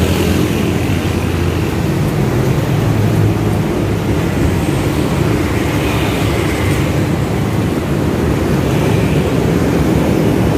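Street traffic, mostly small motorcycles passing, as a steady unbroken rumble of engines and tyre noise.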